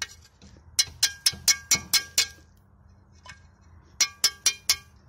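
Sharp metallic clinks with a short ring: an old key just dug from the soil being knocked against metal to shake the dirt off. There are about eight quick taps a second in, then four or five more near the end.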